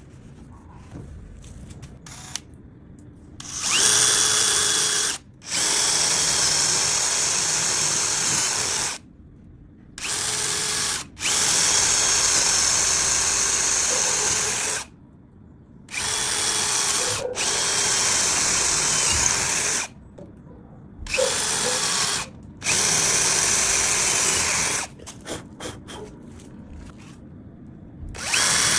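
Electric power tool, probably a drill working wood, run in about eight bursts of one to four seconds with short pauses between them, its motor whine rising in pitch as each burst starts.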